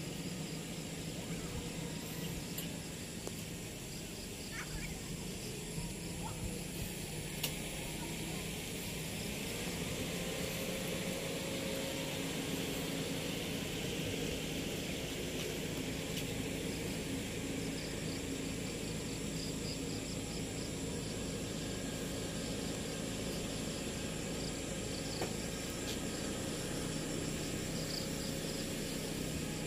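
Outdoor rural background: insects chirring faintly, and a distant motor's steady drone that sets in about ten seconds in and holds.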